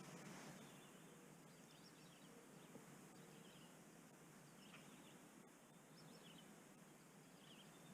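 Near silence with faint bird chirps, short and scattered, over a low steady hiss.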